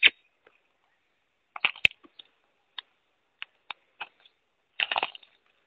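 A small bird giving short, sharp chip notes: single chips a second or so apart, with quick little clusters about a second and a half in and again near the end.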